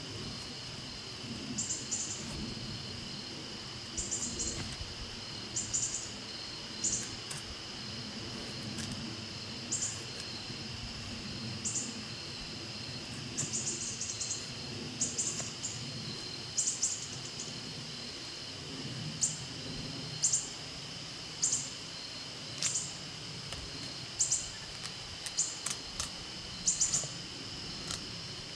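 A Scandi-ground bushcraft knife shaving curls down a stick of wood to make a feather stick: a run of short, dry scraping strokes about one a second, over a steady high insect drone.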